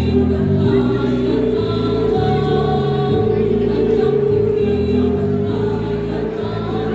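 Choir singing, with long held notes over a low part that moves every second or so.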